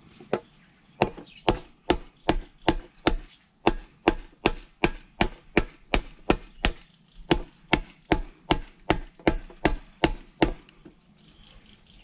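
Machete chopping at a bamboo pole in quick, steady strokes, about two and a half a second, stopping near the end.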